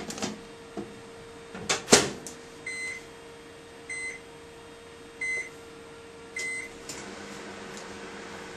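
Microwave oven being set going: a few clicks and a sharp knock of the door shutting, then four short keypad beeps about a second apart, after which the oven starts running with a steady hum.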